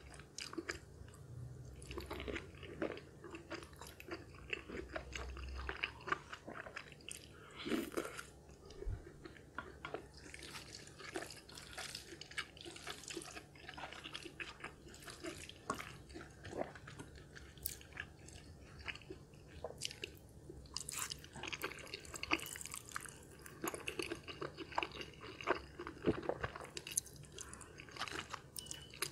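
Close-miked chewing of cheesy carbonara fire noodles with sausage and bacon: wet mouth sounds with many short, sharp clicks all through.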